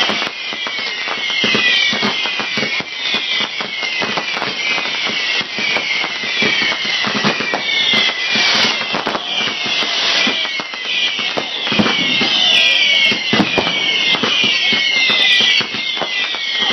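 Fireworks going off in a dense barrage of bangs and crackles, with a high, quick falling sound recurring about once a second.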